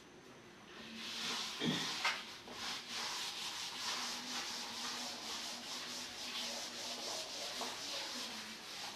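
Chalkboard duster scrubbed rapidly back and forth across a blackboard, wiping off chalk: a steady scratchy rubbing made of many quick strokes that starts about a second in, with a couple of light knocks as it begins.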